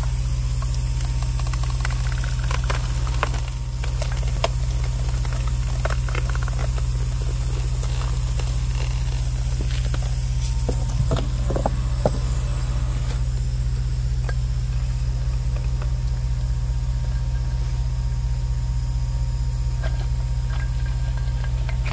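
Hydraulic rock splitter working in a drill hole in a boulder: a steady low hum from its hydraulic drive, with scattered sharp ticks and cracks as the rock splits open along the crack.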